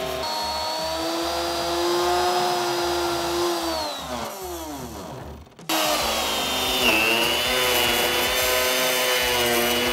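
Handheld plunge router fitted with a V-groove bit, cutting a groove in a wooden tabletop, its motor giving a steady high whine. About four seconds in the motor winds down in pitch and fades nearly to silence. It then cuts back in at full speed, its pitch dipping once briefly before holding steady again.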